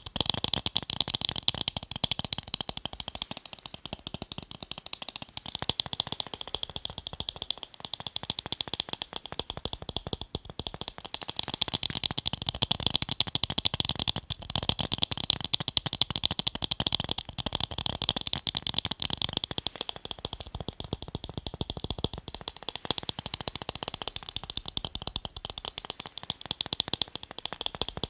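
Fast tapping on a pair of eyeglasses: a dense, continuous stream of light clicks, many per second, without a break.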